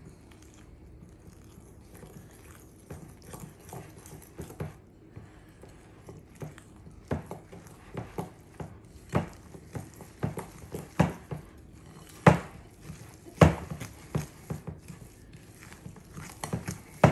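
Metal fork stirring cake batter in a glass mixing bowl: irregular clinks and taps of the fork against the glass, growing louder and more frequent about halfway through.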